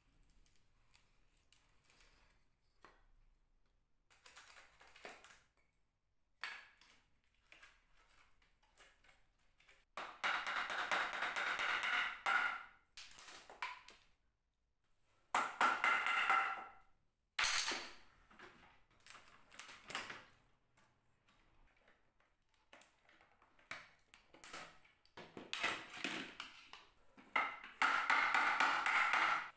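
A small hammer tapping on an old wooden cabinet frame in bouts of rapid, ringing strokes. Between the bouts are quieter knocks and clicks from the wood being handled.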